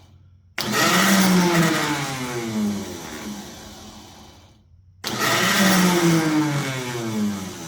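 Snowblower's electric starter motor run twice on the bench. Each time it comes on abruptly at full speed, then spins down with a falling whine as it coasts to a stop.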